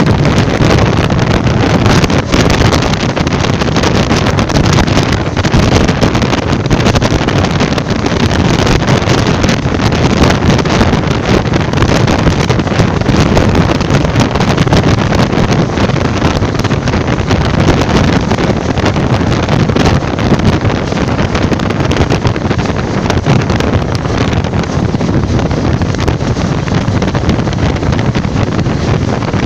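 Loud, steady wind buffeting the microphone from a moving passenger train's open window, over the train running along the track.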